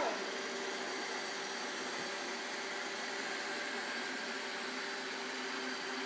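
iRobot Roomba 770 robot vacuum running across a carpet rug: a steady, even whir of its vacuum motor and brushes.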